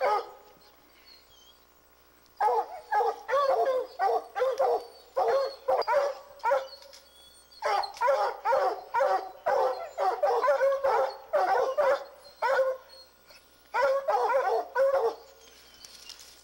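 Treeing Walker hounds barking at a treed mountain lion, the tree bark that holds the cat up the tree. The barking comes in quick runs of many barks, starting about two seconds in, with short pauses between runs.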